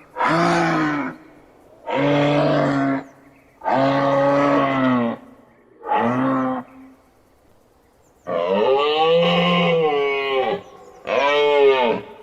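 A moose bellowing in a series of six calls, each about one to two seconds long with short pauses between them. The later two calls are longer and rise then fall in pitch.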